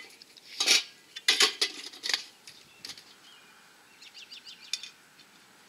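Metal cook pots and a frying pan handle clinking and knocking together as the handle is put back inside the nested pot set and the lid refitted: a few sharp knocks in the first two seconds, then a quick run of faint light clicks about four seconds in as the strap is fastened.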